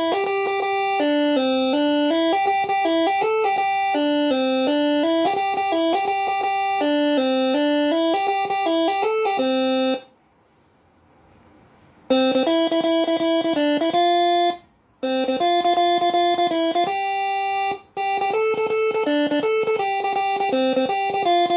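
Six-trumpet telolet 'basuri' air horn (Moreno MS5) playing a quick stepping melody of short pitched notes. It breaks off abruptly for about two seconds near the middle and twice more briefly.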